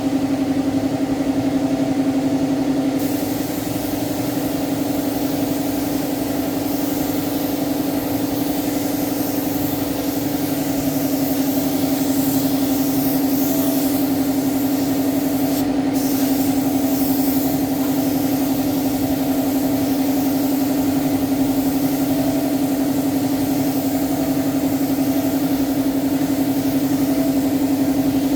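A machine running steadily: a constant low hum with a few higher tones above it.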